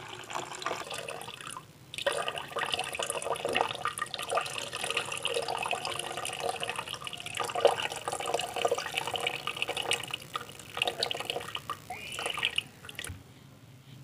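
Blue spent solution poured off from a large plastic beaker into a plastic bucket: the liquid is being decanted to leave the settled silver powder behind. It runs and splashes irregularly, then stops about a second before the end.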